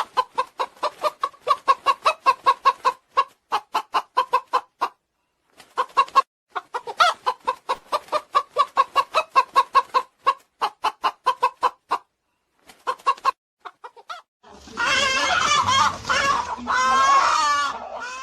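Chickens clucking in quick runs of short calls, about four a second, pausing briefly now and then. About fifteen seconds in it turns into a louder, continuous stretch of overlapping calls with a low rumble underneath.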